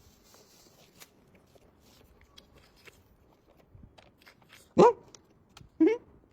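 A dog barking twice, two short loud barks about a second apart near the end, after a stretch of faint clicks and rustling.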